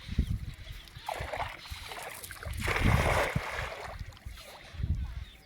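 Water splashing and sloshing during net fishing from a small boat, with irregular low thumps. The loudest splash comes about three seconds in.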